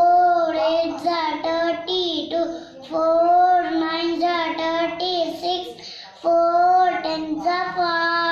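A young boy chanting a multiplication table aloud in a sing-song voice, line after line, on held, fairly level notes with short breaks between phrases.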